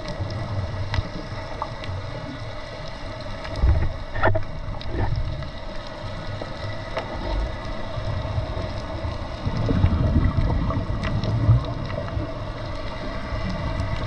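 Underwater scuba ambience: low rumbling surges of a diver's exhaled regulator bubbles, twice, about four seconds in and again around ten seconds in, over a steady underwater hiss with scattered faint clicks.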